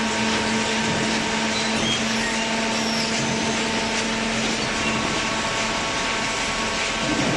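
Hydraulic cardboard baler running: a steady machine hum with a held low whine over a broad noise, with no break in it.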